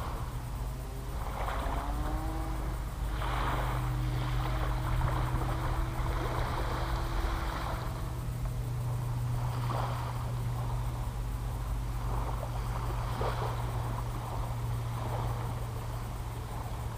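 Steady low drone of a propeller aircraft's engine passing overhead, swelling for a few seconds and then easing, with gusts of noise over it.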